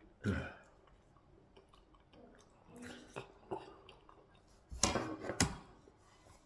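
Close-miked chewing and wet mouth sounds of a man eating yellow yam fufu with afang soup, coming in short spells, with two louder sharp sounds about five seconds in.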